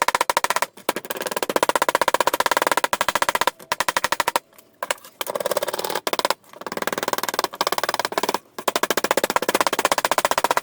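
Rapid, even clatter of a power tool cutting sheet metal, many strokes a second, in runs of one to two seconds with short pauses between them.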